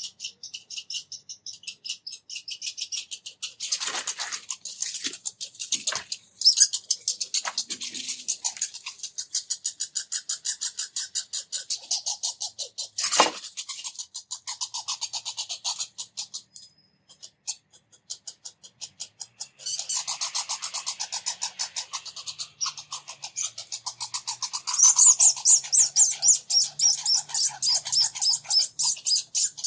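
Red squirrels chattering: long runs of rapid, high-pitched squeaks, broken by a pause and louder again near the end. There are a few sharp knocks along the way.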